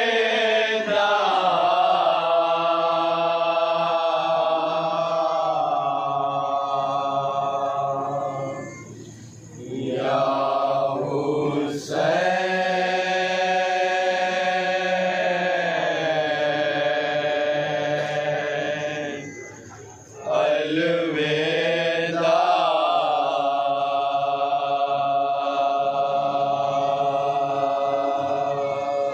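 Noha, a Shia mourning lament, chanted in long drawn-out phrases of about eight to ten seconds each, with brief pauses between them.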